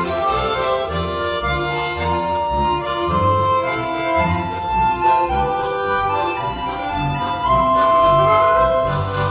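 Harmonica ensemble playing a tune: a melody of held, sustained notes over a rhythmic pulsing low accompaniment.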